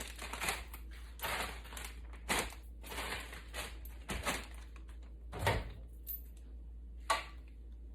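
Short knocks and rustles of a covered bowl being put into a microwave oven and its door shut; the loudest knock comes about five and a half seconds in.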